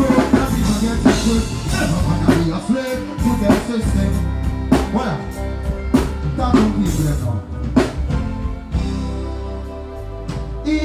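Live reggae performance: a male vocalist singing into a microphone over a band with heavy bass and regular drum hits, through a large stage sound system.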